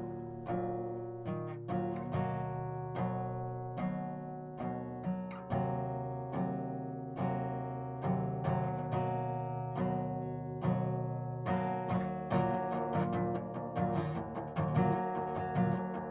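Music: an acoustic guitar picking single plucked notes that ring and fade, a few a second, the picking growing busier about twelve seconds in.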